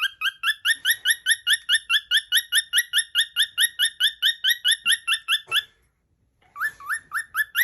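Cockatiel giving a fast, even run of short rising whistled chirps, about four a second, a sound its owner likens to a car alarm. The run stops after about five and a half seconds, and after a half-second pause it starts again.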